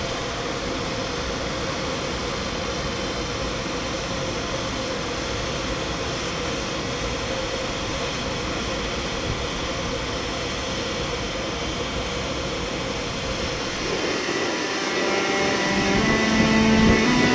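An ÖBB class 4744 Cityjet electric train running slowly into the platform, a steady hum with a held tone. Near the end it gives way to a louder electric locomotive: the Taurus at the head of a Railjet pulling away, its motors sounding several stepping tones.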